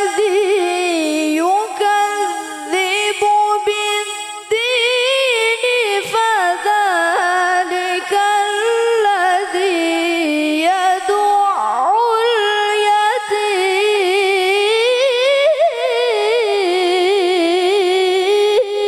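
A girl reciting the Qur'an in the melodic tilawah style into a microphone: one female voice holding long, drawn-out notes with fast trills and wavering ornaments, gliding between pitches.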